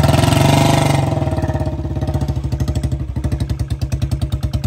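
Royal Enfield Bullet 350's single-cylinder engine revved hard for about a second as the bike pulls through mud, then settling to a steady low-rev thump.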